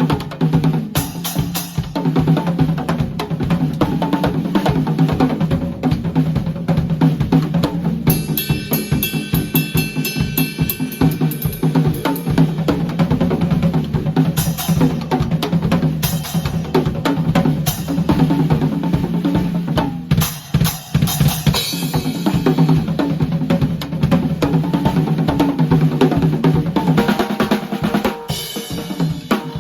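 Drum kit played in a continuous fast beat of bass drum, snare and hi-hat, the hi-hat sounding muffled. The beat drops out briefly about two-thirds of the way through.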